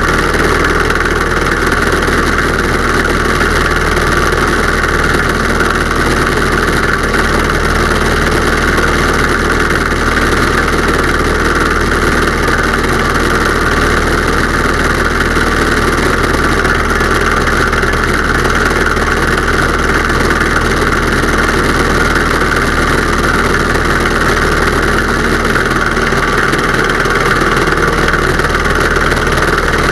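Pietenpol Air Camper's engine and propeller running steadily in flight, with the rush of the slipstream over an outside, wing-mounted microphone. It is a loud, unchanging drone with no change in power.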